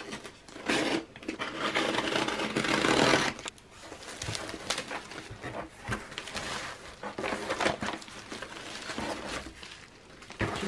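Cardboard box being opened by hand: a loud scraping rip lasting about two seconds as the packing-tape seam is slit and the flaps pulled apart, then softer rustling of kraft packing paper and crinkling plastic wrap as the contents are lifted out.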